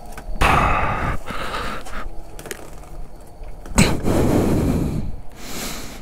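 A rider's heavy breaths and the rustle of his jacket close to a helmet-mounted microphone as he shifts on the motorcycle, with a sharp knock about four seconds in.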